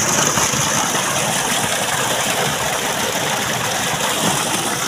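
Water gushing steadily from a tubewell outlet pipe and splashing into a concrete tank, a constant rushing noise.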